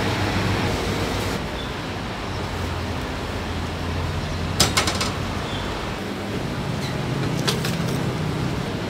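Steady background hum of a busy street-food stall, with a quick cluster of metal clicks about halfway through and a few more near the end, as steel tongs knock against the steel tray of grilled chickens.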